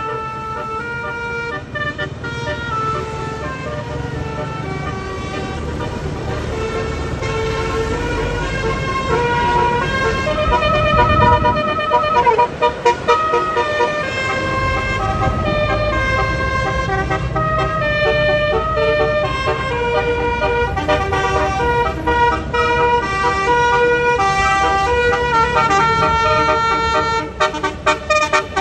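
Bus 'telolet' multi-tone horn playing a long melody of stepped notes, over the low rumble of a vehicle engine.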